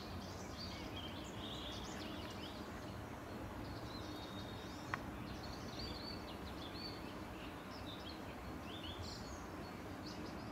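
Small birds chirping repeatedly in short high calls over a steady background hiss, with a single sharp click about halfway through.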